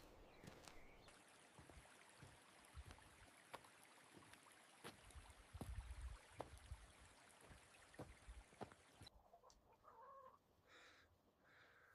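Chickens clucking faintly, in short calls that come in during the last few seconds, over a quiet background of scattered soft clicks and rustles.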